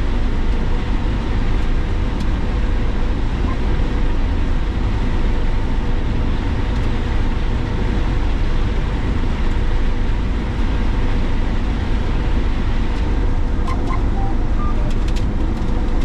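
Combine harvester running steadily under load while harvesting corn, heard from inside the cab: a constant machine drone with a steady hum.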